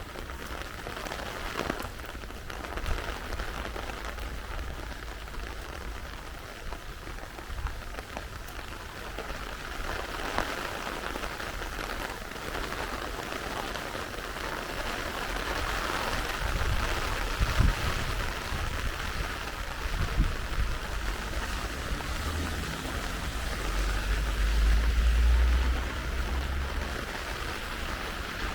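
Steady rain falling, with intermittent low rumbles that swell loudest about 25 seconds in.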